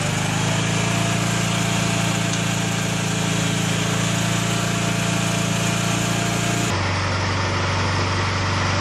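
Engine-driven hydraulic power running the Ditch Witch PB30 pipe-bursting unit, a loud, steady drone as it pulls the new polyethylene pipe through the old concrete sewer pipe. About seven seconds in, the drone drops to a lower pitch.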